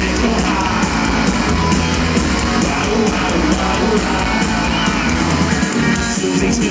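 Live rock band playing loudly through a festival PA: guitars and drums with singing, heard from inside the audience.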